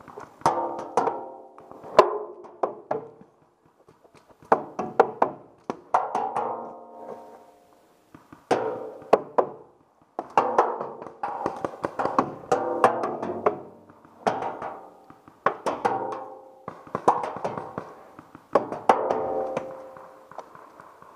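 Paintballs striking the steel drums in rapid volleys. Each hit is a sharp knock followed by a short metallic ring from the drum.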